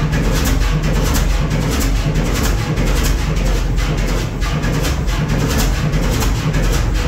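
Fairbanks Morse 32E six-cylinder two-stroke diesel engine running steadily, loud, with an even, repeating beat.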